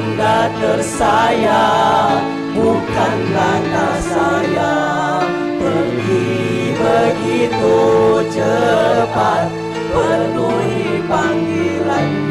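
Music: a song with singing, the voice wavering with vibrato over a steady instrumental accompaniment.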